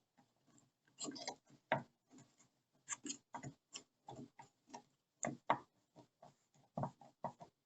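Worn tailgate latch striker hook clicking and knocking irregularly as it is rocked, several faint clicks a second. It has play in it: wear that lets it rattle and is taken for the cause of the tailgate's squeak while driving.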